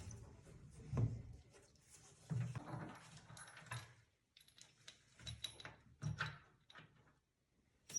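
Spanner working the transport bolts out of the back of a new washing machine, giving faint, irregular metallic clicks and scrapes with short pauses between them.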